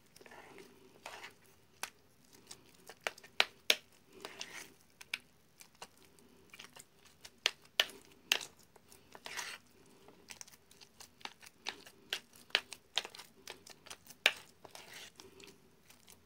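Hand kneading and stirring a wet fish-bait paste in an enamel plate: scattered sharp clicks and taps against the plate with a few short squelching smears. A plastic packet crinkles as powder is shaken from it onto the mix.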